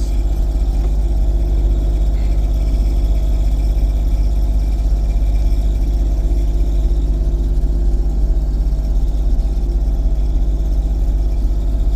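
Claas Dominator 108 SL combine running steadily while picking up and threshing barley swaths. The engine and threshing drive make an even, unbroken drone, heard from inside the cab.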